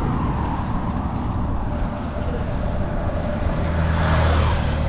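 Road traffic noise, with a motor vehicle's engine drone growing louder about three and a half seconds in.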